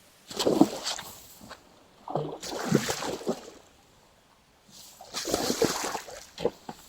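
Water splashing in three bursts as a hooked pike is brought in and landed.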